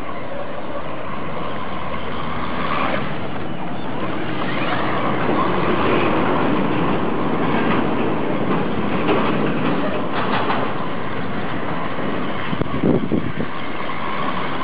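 Traxxas Slash radio-controlled truck driving through deep water, its motor running steadily while the wheels churn and splash, with a few louder surges.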